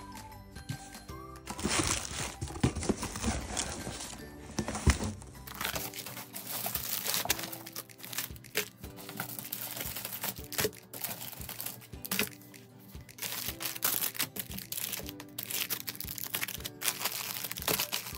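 Plastic packaging crinkling and rustling in irregular bursts as plastic-wrapped goods are handled and laid out, over steady background music.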